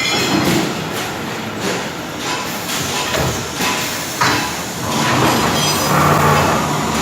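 Automatic CNC carbide circular saw machine for steel bar running: continuous mechanical clatter with scattered knocks from the saw and bar feed, a sharp knock about four seconds in and a steadier hum near the end.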